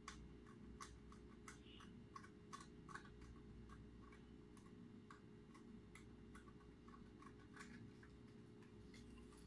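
Faint, irregular light clicks and taps of hands handling small plastic LED modules and their wires, over a steady low hum.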